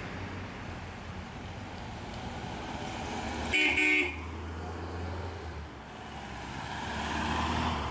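Classic cars driving past one after another, their engines running. One of them gives a short horn toot about three and a half seconds in, and another car swells louder as it passes close near the end.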